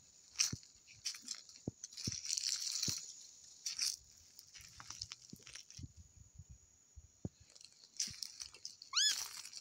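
Footsteps crunching through dry grass and leaves, irregular and uneven, over a steady high-pitched hiss. A short rising call sounds near the end.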